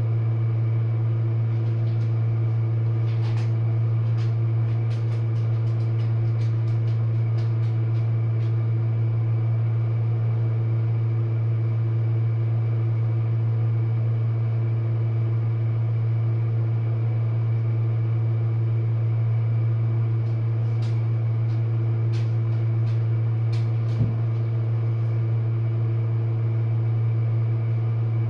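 Jenn-Air dishwasher running its wash cycle: a steady low motor hum with scattered light ticks and one short knock late on.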